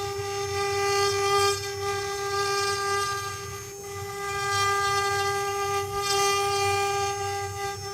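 CNC wood-carving router spindle running with a steady high whine, over a rougher cutting noise that swells and fades.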